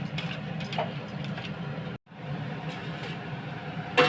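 Gas stove burner running on a high flame with a steady low rush, heating a foil-sealed biryani pot on a tawa during dum cooking. The sound cuts out for an instant about halfway through, and a metal clink comes at the very end.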